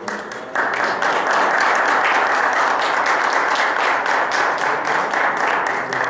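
A roomful of people applauding, the clapping swelling to full strength about half a second in and holding steady.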